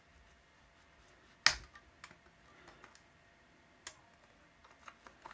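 Plastic clicks and snaps from a blue plastic pry tool levering apart the Casio CQ-1 calculator's black and silver plastic case halves. One sharp snap about a second and a half in, as a push clip lets go, is followed by lighter clicks and taps.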